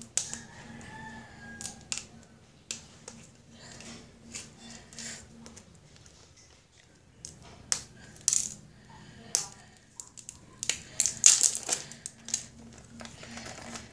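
Small scissors snipping and clicking and a plastic wrapper crinkling as a plastic surprise egg is cut open and handled. The clicks are scattered and irregular, with a busy cluster near the end.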